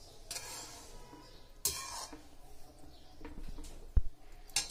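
Slotted metal spatula stirring through gravy in a metal kadhai, with a sharp knock of the spatula against the pan about four seconds in and a smaller one just before the end.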